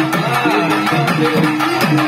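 Live South Indian folk temple drums played in a fast, steady rhythm, with sustained pitched notes and lower tones sliding up and down over the beat.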